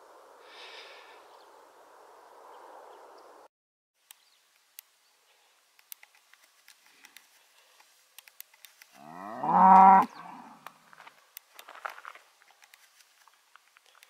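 A cow lets out one loud moo about nine seconds in, lasting about a second. Faint scattered clicks come before and after it.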